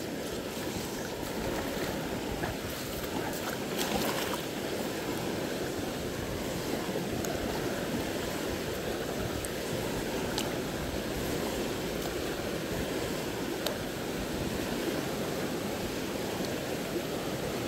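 Steady rushing of river water over rapids.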